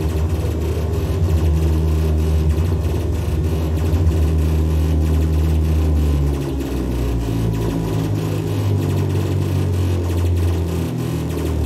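Experimental electronic music from synthesizers played through PA speakers: a loud low drone under a fast, even, machine-like rattling pulse. The drone changes and drops a little in level about six seconds in.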